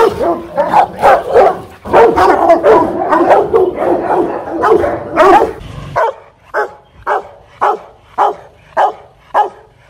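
Rottweiler barking hard in a rapid, overlapping run. About six seconds in, the sound changes abruptly to single, separate barks repeated evenly about twice a second.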